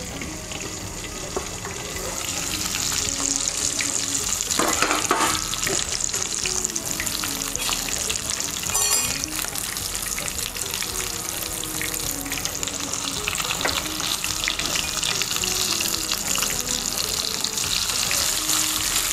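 A masala-coated whole fish shallow-frying in hot oil in a pan: a steady, dense sizzle and crackle of spitting oil, growing louder over the first few seconds.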